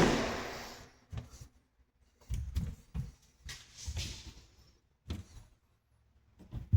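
A sharp snap at the start as a tape measure blade retracts into its case, with a rattle that fades over about a second. It is followed by scattered soft knocks and thumps.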